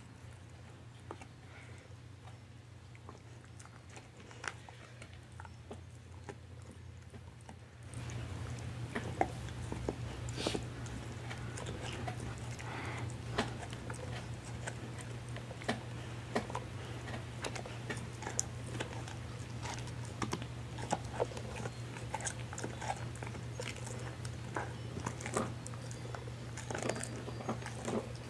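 A husky gnawing and crunching a Purina Busy Chewnola chew treat: irregular sharp crunching bites that become louder and more frequent from about eight seconds in. A steady low hum runs underneath.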